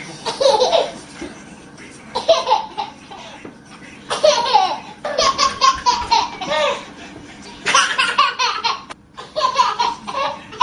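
Hearty laughter in several bouts of quick, repeated ha-ha pulses, with short pauses between them.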